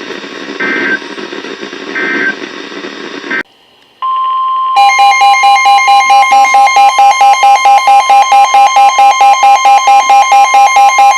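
NOAA Weather Radio alert: short two-tone data chirps over static, then a brief silence. From about four seconds in, the steady 1050 Hz warning alarm tone sounds. Soon after, a second beep pulses on top of it about four or five times a second. The alert comes before a tornado warning.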